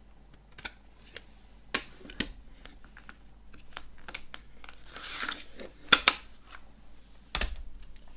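Plastic CD jewel case being opened and handled: a scatter of sharp plastic clicks and taps, a brief rustle, then two loud snaps close together about six seconds in as the disc is worked off the centre hub, and one more click near the end.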